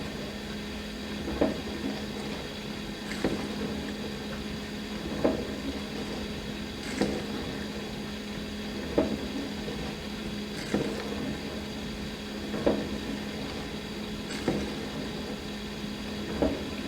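Dishwasher running its wash cycle: a steady pump hum under spraying water, with a splashing surge about every two seconds.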